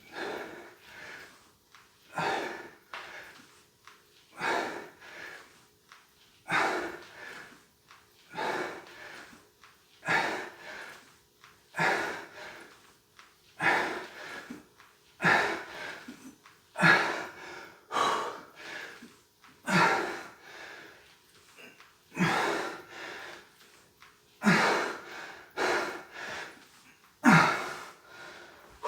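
A man breathing hard under exertion: a forceful exhale about every two seconds, steady in rhythm, the breath paced to the repetitions of a strength exercise.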